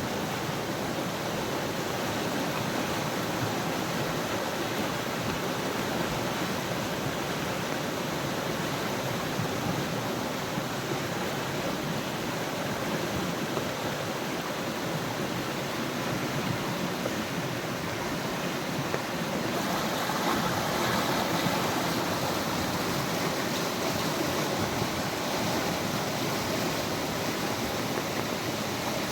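Heavy monsoon rain falling steadily, a dense even hiss that grows a little louder about twenty seconds in.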